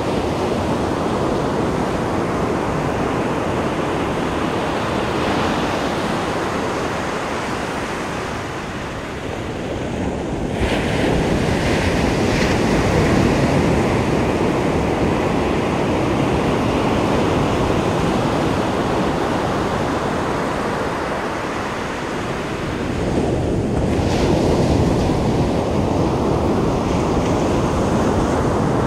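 Pacific Ocean surf breaking on a beach: a steady rush of surf with two waves crashing, one about ten seconds in and one about twenty-three seconds in.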